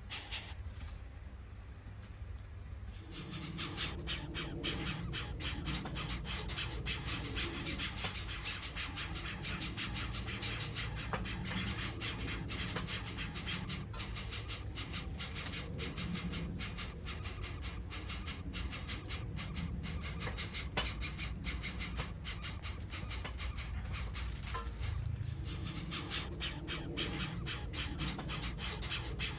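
Background music with a fast, steady shaker-like percussion beat over low sustained notes, dropping out for about two seconds near the start.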